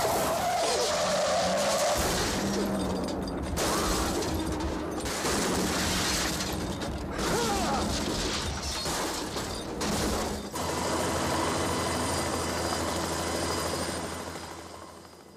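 Car crash sound effects: a run of loud, noisy crashes with sudden cuts between them, breaking glass among them. From about two-thirds of the way in a steadier hum takes over and fades out near the end.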